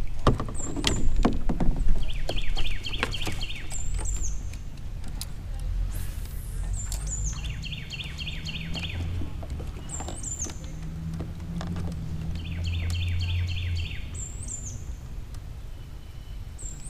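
A wild songbird calling again and again: a quick run of about six short notes every four to five seconds, with a single high, short note between the runs. Some sharp knocks come in the first two seconds, over a low rumble.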